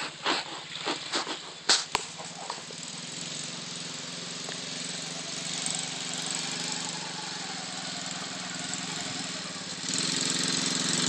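Engine of a small youth ATV running as it is ridden across a lawn, getting louder about ten seconds in as it comes closer. Several sharp knocks in the first two seconds.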